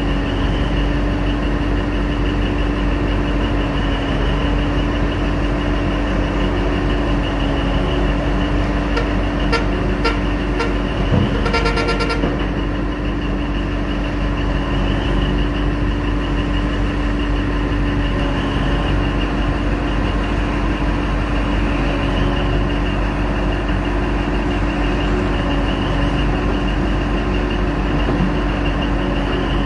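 Heavy diesel running of a Komatsu mining excavator and haul truck, steady, with a constant low hum. About a third of the way in a horn gives several short toots and then a longer blast.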